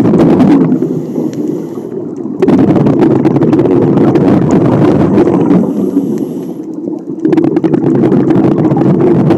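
Scuba diver breathing through a regulator: long spells of loud, crackling exhaled bubbles, broken twice by a quieter inhalation in which the demand valve gives a thin high hiss. The pattern repeats about every four to five seconds.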